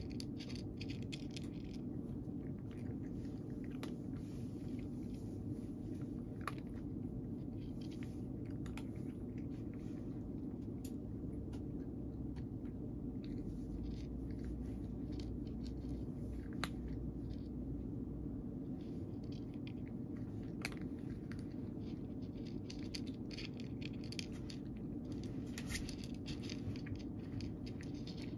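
A cat crunching dry kibble, scattered crisp bites and chews over a steady low background hum.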